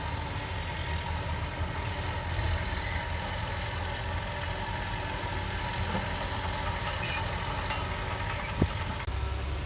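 Heavy diesel engine of earthmoving machinery running steadily at a low idle, with one sharp click near the end.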